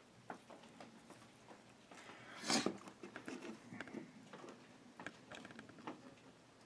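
Handling noise from a wooden birdhouse and the dried mud wasp nest taken out of it: scattered light taps and clicks, with one louder scrape about two and a half seconds in.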